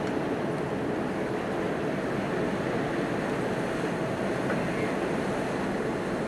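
Steady rushing noise of wind and sea water with a faint hum, heard from high on a moving cruise ship.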